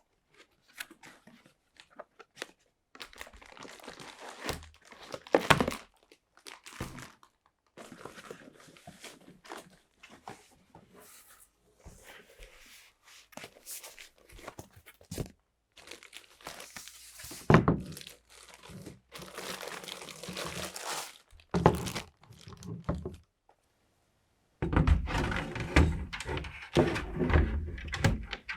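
Hands assembling a PC: scattered clicks and knocks of parts and case panels being handled, with stretches of plastic crinkling. There are a few sharper knocks, and a dense run of low thumps and handling near the end.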